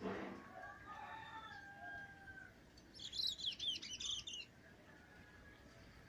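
Caged songbirds calling: a few drawn-out whistles, then, about three seconds in, a second and a half of rapid high chirping, the loudest part. A short rustle at the very start.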